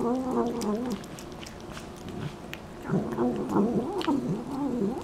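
A domestic cat making a string of short, wavering vocal murmurs while eating wet food from a plate: one run in the first second, a pause, and a second run from about three seconds in. Sharp chewing clicks fill the quieter stretch between them.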